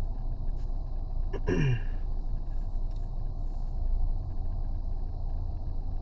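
Steady low rumble inside a vehicle's cabin, with a short sound about one and a half seconds in whose pitch falls steeply.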